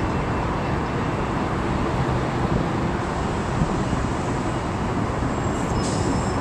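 Steady outdoor rumble and hiss, with a brief high squeal about five and a half seconds in.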